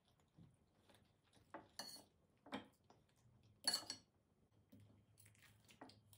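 Light knocks and clinks of kitchenware being handled: a handful of separate sharp strikes, the loudest and brightest a little past the middle.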